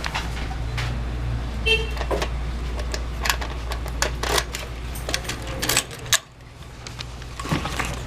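Car running with a steady low hum, with scattered clicks and knocks and a short beep about two seconds in.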